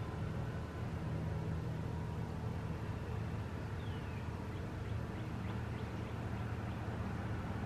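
Outdoor background ambience: a steady low rumble with a faint, short falling bird chirp about four seconds in.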